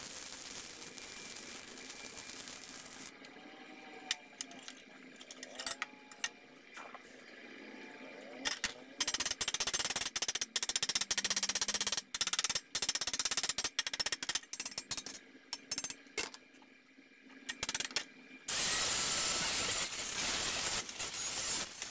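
Electric arc welding crackling and hissing for the first few seconds, then scattered light taps. Next come long stretches of loud, dense crackling broken by short pauses. About two and a half seconds before the end, a handheld angle grinder starts running against the welded steel bracket.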